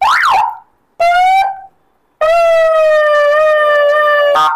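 Remote-controlled electronic siren fitted to a Hero Splendor Xtec motorcycle, sounding three tones. First comes a quick rising-and-falling whoop, then a short tone about a second in, then a long held tone with a slight wobble that cuts off suddenly near the end.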